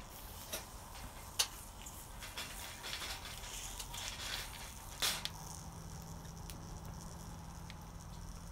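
Steel tongs clicking against abalone shells and a wire grill as the abalone are turned and lifted over charcoal, with the shells sizzling and crackling on the heat. There are a few sharp clacks, the loudest about a second and a half in.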